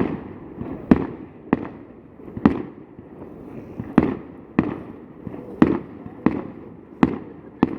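Aerial fireworks bursting: about ten sharp bangs at irregular intervals, each followed by a short echoing tail.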